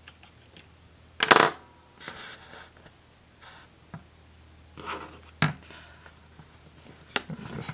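Hard clicks and clatter of a phone being handled and pushed to seat it in a plastic screen-protector installation tray. The loudest clatter comes about a second in, with lighter taps and knocks after it.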